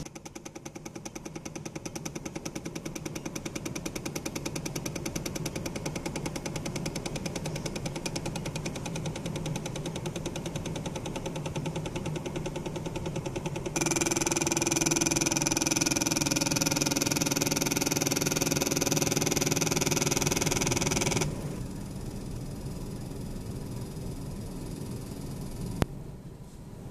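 DIY inkjet bioprinter printing: its stepper motors, salvaged from old CD-ROM drives, drive the print head with a rapid, even ticking buzz. About 14 seconds in the sound turns louder and brighter with a steady hum for several seconds, then drops back quieter, with a single sharp click near the end.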